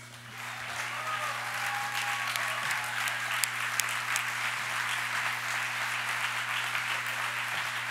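Audience applauding, building over the first second and then holding steady.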